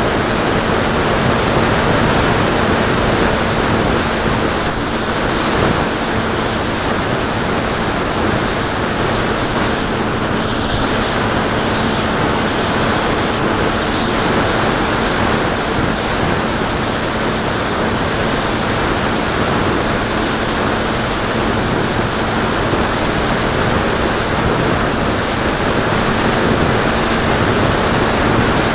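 Steady rush of air over the microphone of a camera mounted on a Bixler 2 RC foam plane in flight, with a faint steady hum from its electric motor and propeller underneath.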